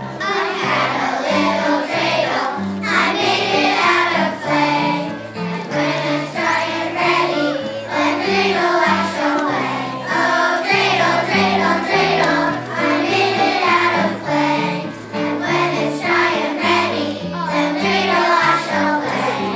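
A children's choir singing a song together over an instrumental accompaniment.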